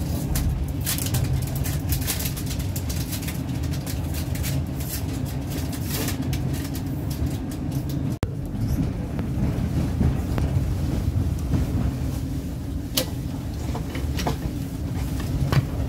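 Steady low rumble of a moving passenger train heard from inside the carriage, with the wheels clicking over rail joints and points now and then.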